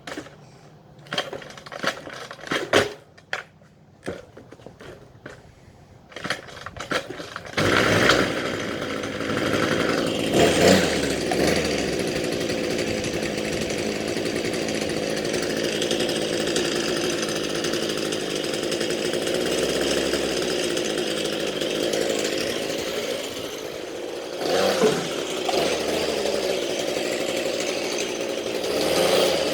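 Small two-stroke engine of a handheld power tool sputtering in irregular short pops for several seconds, then catching and running steadily. It revs up briefly soon after catching and again near the end.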